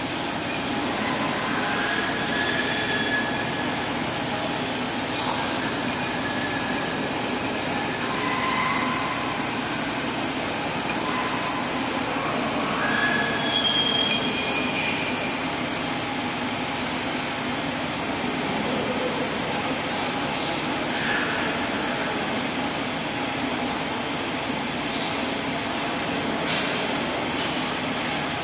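TIG welding arc on 316 stainless steel pipe burning steadily with an even hiss, with a few short high squeaks over it.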